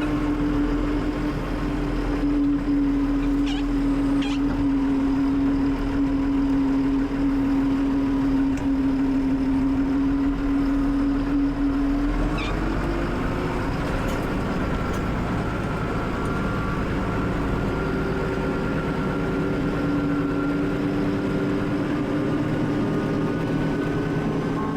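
A vehicle engine running at a steady speed, its pitch shifting briefly about halfway through before settling again.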